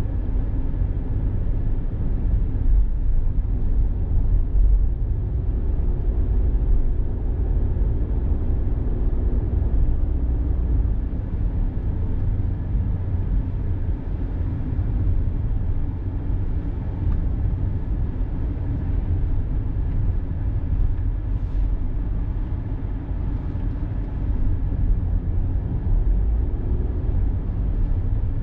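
Car driving along an expressway: a steady low rumble of road and engine noise with no distinct events.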